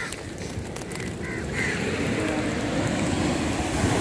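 Wind and surf noise on a beach, growing louder about a second and a half in, with a few short high calls near the start.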